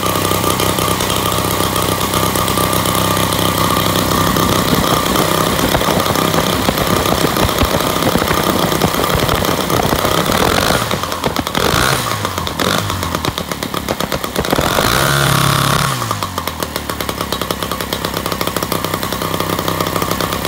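Rotax 185 two-stroke engine running steadily just after its first start, still on its unadjusted carburetor. About two-thirds of the way through, the engine speed sags and picks up again a few times, then it settles back to a steady run.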